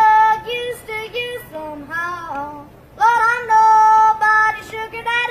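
A young boy yodeling, his voice breaking up and down between low and high notes, then holding a long high note from about three seconds in.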